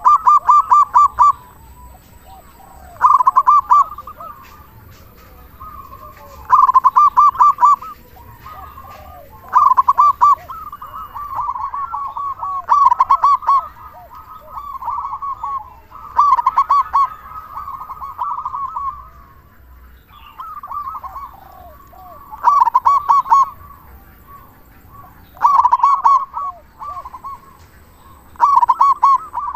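Zebra dove (perkutut) cooing, male song. Phrases of rapid rolling notes come about every three seconds, each one to two seconds long, with a brief lull about two-thirds of the way through.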